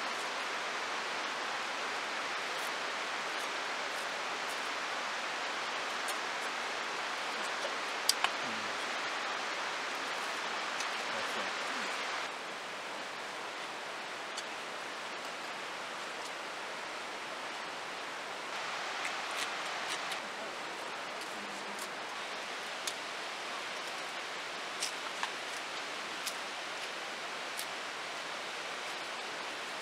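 Steady rushing of a nearby river, dropping a little in level about twelve seconds in, with a few light clicks of chopsticks against dishes.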